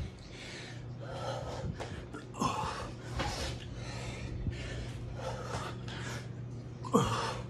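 A man breathing hard and fast, winded from burpees: quick, heavy breaths in and out, more than one a second, with a louder gasp near the end.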